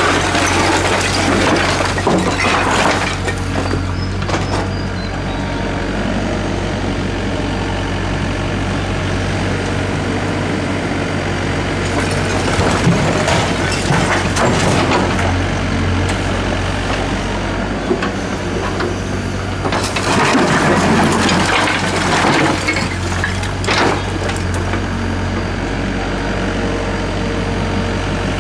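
Doosan DX55W wheeled mini excavator's diesel engine running steadily under load, with loud crashing and clattering of concrete and brick rubble three times: as the bucket scoops near the start, and as the load is dropped into the steel dump-truck bed around the middle and again about two-thirds of the way through.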